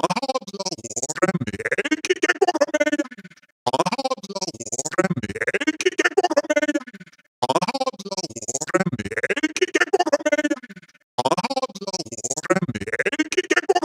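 Synthesized robotic voices, chopped into a rapid stutter, in repeated phrases about three and a half seconds long with short breaks between them.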